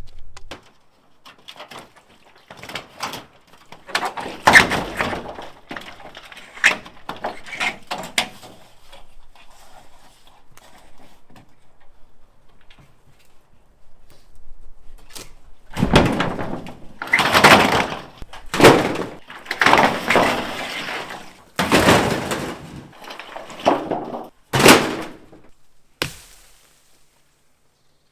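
Axe work on small trees: scattered sharp thunks of blows into wood, then from about halfway a run of longer, louder cracking and crashing sounds of wood and branches that stop near the end.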